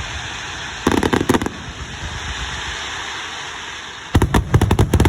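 Fireworks going off: a quick cluster of sharp bangs and crackles about a second in, and another longer, denser cluster near the end, over a steady hiss.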